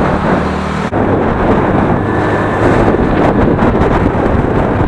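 Wind rushing over a helmet or action camera's microphone on a moving motorcycle, over the engine and road noise. The sound changes abruptly about a second in, the steady engine hum giving way to mostly wind.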